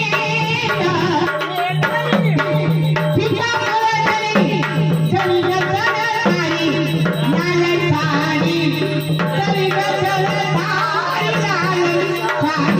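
Marathi gavlan folk song: a woman singing over tabla-style hand drumming and a steady held drone.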